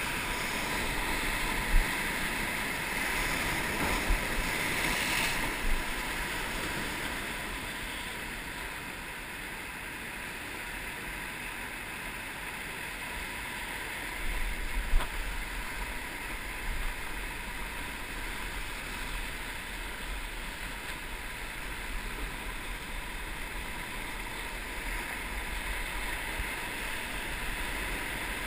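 Sea surf surging and breaking over coastal rocks, a steady rushing wash, with wind rumbling on the microphone. A few brief knocks stand out, the loudest about a third of the way through and around the middle.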